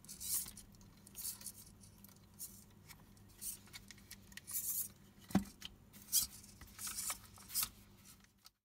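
Hands handling a small plastic robot dog's legs and wires: short scrapes, rustles and light clicks, with one sharper knock about five seconds in. The sound cuts off abruptly just before the end.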